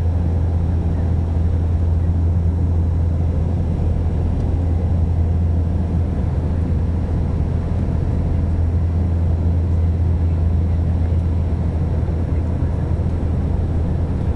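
Steady low drone of an airliner cabin in flight: engine and airflow noise heard from inside the cabin.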